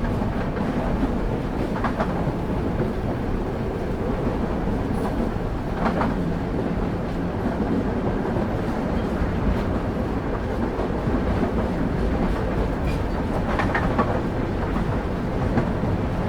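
Train wheels rolling on rails, heard from inside a passenger carriage: a steady low rumble, with a few brief higher-pitched squeaks rising out of it now and then.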